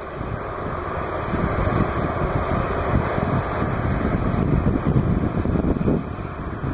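Tupolev Tu-154M's three D-30KU-154 turbofan engines at takeoff thrust as the airliner climbs away, a steady, rough jet rumble.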